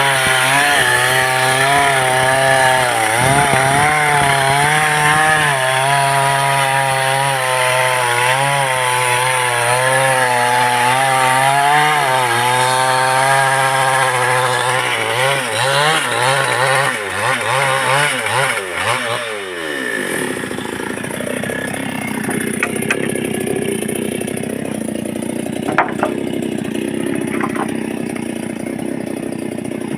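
Two-stroke engine of a replica Stihl chainsaw with a 24-inch bar running under load while cutting lumber, its pitch rising and falling as the cut bogs and frees. About two-thirds of the way through the engine winds down and stops, leaving a rustling noise and a few sharp knocks.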